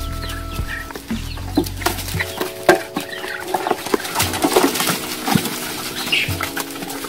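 Domestic chickens clucking, with many short sharp taps and clicks among them, over background music of held chords; the deep bass part of the music drops out about two seconds in.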